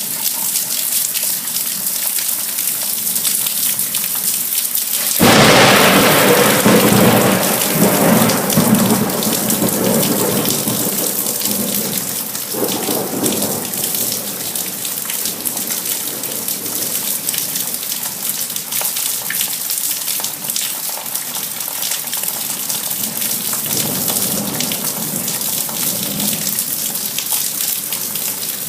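Steady rain falling during a thunderstorm, with a sudden loud thunderclap about five seconds in that rumbles on for several seconds, and fainter rolls of thunder later.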